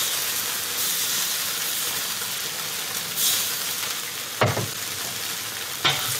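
Noodles frying in a hot wok with a steady sizzle. Two sharp metal knocks come near the end as the metal wok spatula goes into the wok.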